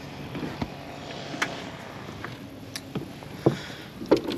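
A handful of light, separate clicks and knocks from fishing rods and reels being handled against the deck of a bass boat, over a low steady background.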